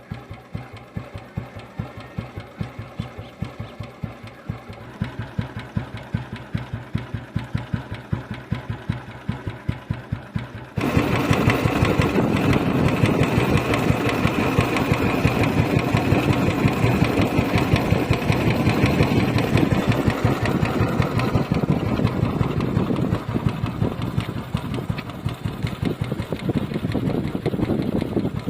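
1978 Royal Enfield Bullet 350's single-cylinder four-stroke engine idling with a steady, even thump. About eleven seconds in the sound suddenly jumps louder and fuller, and the thumping runs on.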